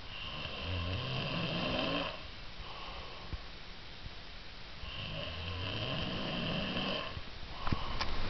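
Snoring: two long snores about five seconds apart, with a few sharp clicks near the end.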